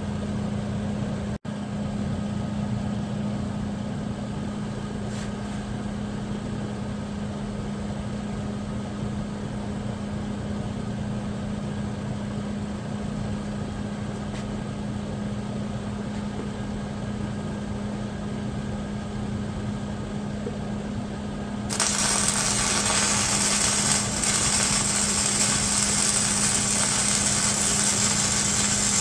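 Steady machine hum; about three-quarters of the way through, a loud, even hiss starts suddenly and keeps going.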